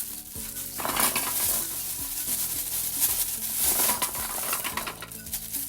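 Kitchen handling sounds: gooseberries and utensils stirred, scraped and clattering in a pot or bowl, in an irregular run of rustling and small knocks.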